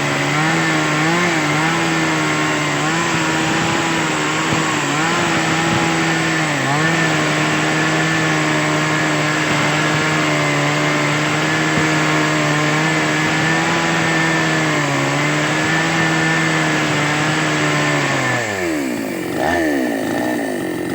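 Petrol chainsaw engine running at steady high revs with a few brief dips for most of the time, then the throttle is released near the end and the pitch drops away to idle, with one short blip of throttle.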